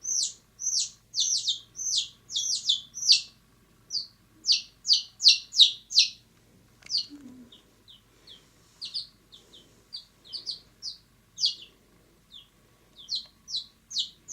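Young chicks peeping: a quick run of short, high, falling peeps, several a second, thinning out after about six seconds.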